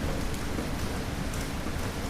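Steady rain falling, with a low rumble of thunder underneath that is weaker than the peak just before.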